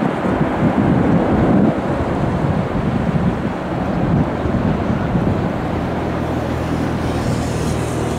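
Boeing 777-300ER's GE90 jet engines making a deep rumbling roar as the airliner rolls down the runway, mixed with wind buffeting the microphone. The roar eases a little after the first couple of seconds, and a steady low hum comes through near the end.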